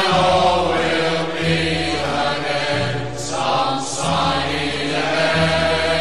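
Background music from an old 1940s song recording: many voices hold long chords, in the manner of a choir, over a steady orchestral bass.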